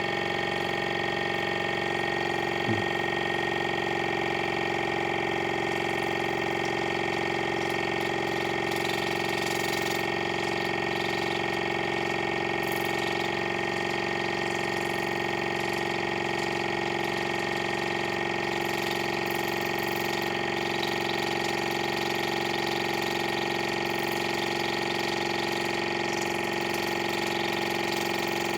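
Water pick's small electric pump running steadily at its highest setting, a constant hum with water spraying, as it flushes out an ear. A brief click about three seconds in.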